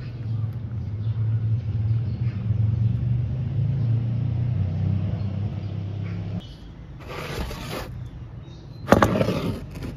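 A low steady mechanical rumble for about six seconds, then a sharp knock near the end as a glass jar of honey is set down on a wooden table, followed by a short rustle.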